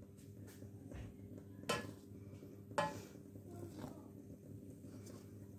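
Steel ladle clinking and scraping against a steel pot while stirring boiling milk, with two sharper knocks about a second apart near the middle, over a steady low hum.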